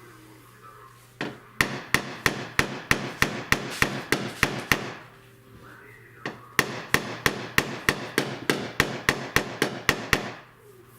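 Light hammer taps on a car body panel during dent repair. Two runs of about a dozen even taps each, about three a second, with a short pause between them.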